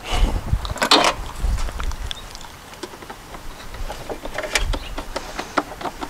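Plastic engine cover on an Ecotec four-cylinder being pressed down onto its mounts, with a couple of sharp knocks in the first second. Then a run of light clicks and taps as hands handle parts under the hood. The engine is not running.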